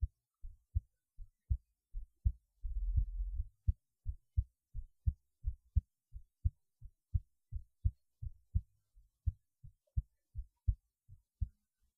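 A person's heartbeat recorded close against the chest: a steady rhythm of low thumps, about three a second. About three seconds in, a brief louder low rumble runs under the beats.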